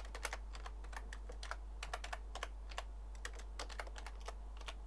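Typing on a computer keyboard: irregular key clicks, several a second, as a line of code is entered.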